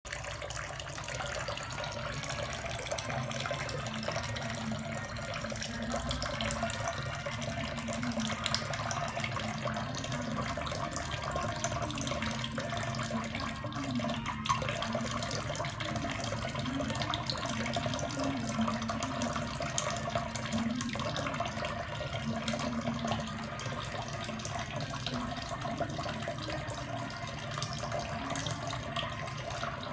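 Kitchen tap running in a thin, steady stream, splashing into a stainless steel sink.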